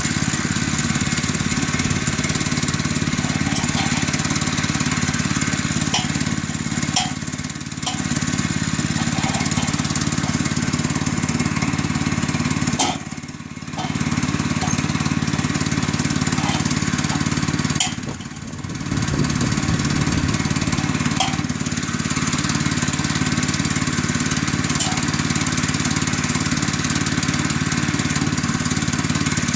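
Small gas engine on a Woodland Mills HM122 bandsaw mill running steadily with no cut under way. Its sound drops briefly twice, and a few sharp knocks come from the log and clamps being handled on the steel bed.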